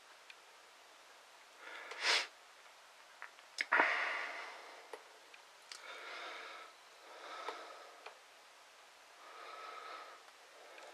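A person sniffing and breathing through the nose close to the microphone: a sharp sniff about two seconds in, then a click and a longer fading exhale, followed by three softer breaths a second or two apart.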